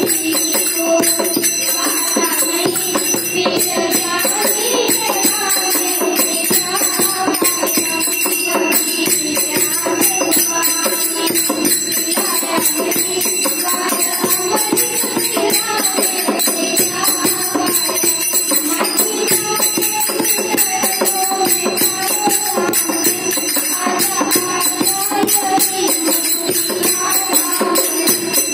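Girls singing a song together into a microphone, heard through a loudspeaker, with a constant high hiss over the voices.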